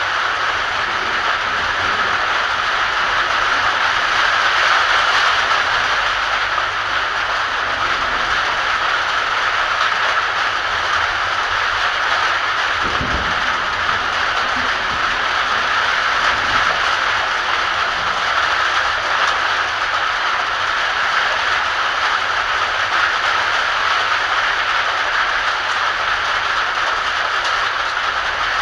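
Heavy rain pouring steadily, a dense even hiss, with one short low thump about halfway through.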